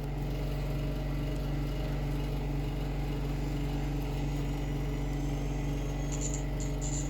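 Steady low hum with a stack of even overtones, unchanging throughout, with faint high twitters near the end.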